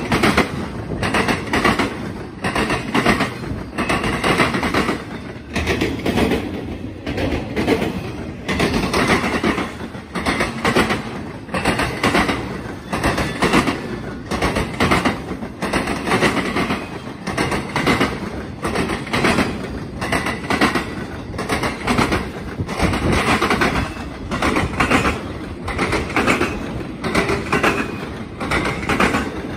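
Intermodal freight train's container cars rolling past, their steel wheels clacking repeatedly over the track over a steady rumble.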